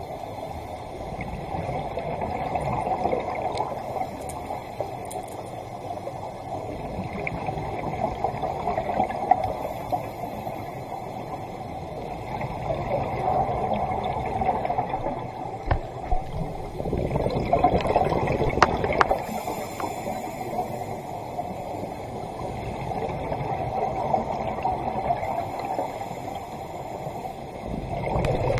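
Muffled underwater sound of a scuba diver's regulator breathing and exhaled bubbles gurgling, swelling and fading every few seconds.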